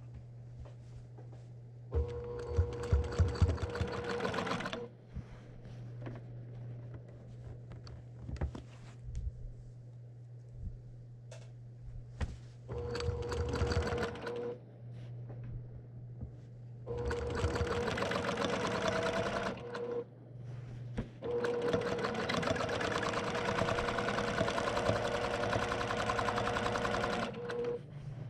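Brother PQ1500SL sewing machine stitching during free-motion quilting. It runs in four bursts with short stops between, the longest lasting about six seconds near the end.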